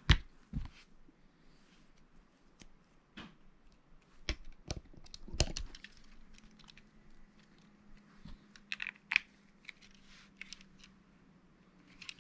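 Lego bricks being handled and pressed together, giving irregular sharp plastic clicks and snaps with some light rattling of loose pieces.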